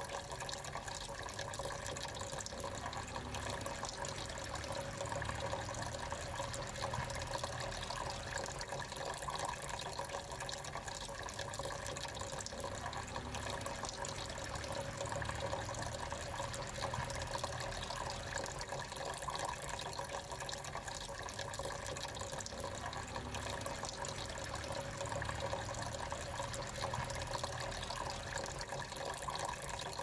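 Small tabletop waterfall fountain running: thin streams of water falling from clay pot to clay pot and into the basin, a steady trickle and splash.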